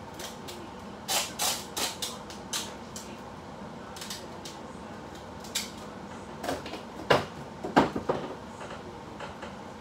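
Scattered sharp knocks and clicks, a quick cluster about a second in and the loudest few around seven to eight seconds in, over a steady low hum.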